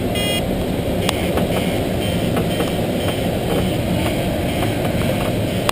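Steady rush of airflow over the canopy of a Schweizer 1-34 glider in gliding flight, heard inside the cockpit, with a few faint short beeps.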